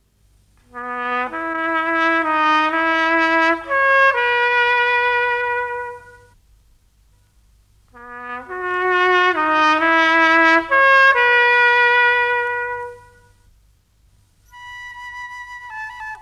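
Solo trumpet playing a short melody of rising and falling notes twice, with a pause of about two seconds between the phrases, the second phrase repeating the first. A higher held wind note comes in near the end.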